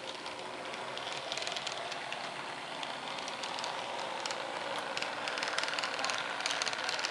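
HO scale model of a GE U10B diesel locomotive running along the track: the hum of its small electric motor and the light clicking of its wheels on the rails, growing a little louder as it passes close by.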